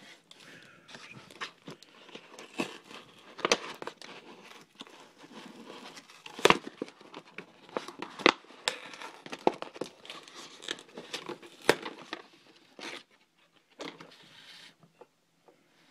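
Plastic and cardboard packaging being handled and opened: irregular crinkling and crackling with sharp snaps, the loudest about six and a half seconds in.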